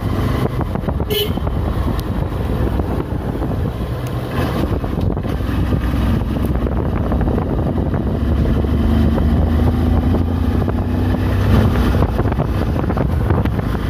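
Motorcycle engine running steadily while the bike is ridden along a road, heard close up from a phone mounted on the handlebar.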